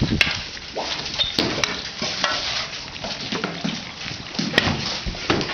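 Shovels scraping and scooping wet mud, with irregular scrapes and knocks of the blades.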